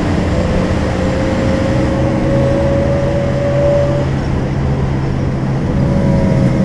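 Volvo B12M bus's 340 hp engine running under way, a steady low drone with a thin whine that rises slowly in pitch over the first few seconds and comes back faintly near the end.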